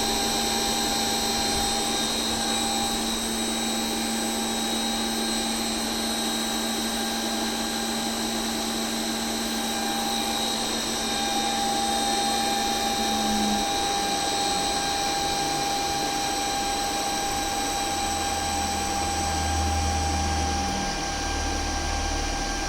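Repaired ABB ACH550 variable-frequency drive running on test: a steady fan-like rush with a fixed high-pitched whine. A low tone drops out about halfway through, and a deeper hum comes in near the end.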